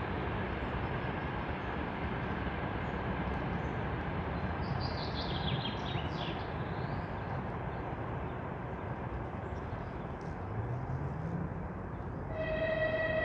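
Forest ambience: a steady, dense background rush, with a quick run of bird chirps about five seconds in. A held tone with overtones sets in near the end.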